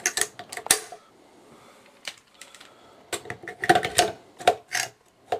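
Sharp metallic clicks and clunks of a Bushmaster M4A3 AR-15 being put back together: the bolt carrier group pushed into the upper receiver and the rifle's parts snapped into place. A few clicks at the start, then a quiet stretch, then a quicker run of louder knocks in the second half.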